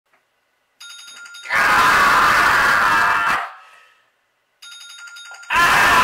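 A bell ringing loudly in two bursts of about two seconds each, each starting with a fainter, thinner tone just before it.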